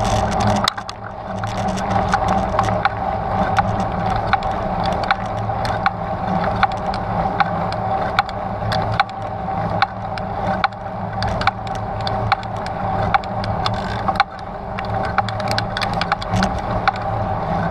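Trek Stache 9 29+ hardtail mountain bike rolling over a rough, rocky trail: a steady rumble from the wheels with frequent sharp clicks and rattles from the bike, briefly dropping away about a second in and again near the end.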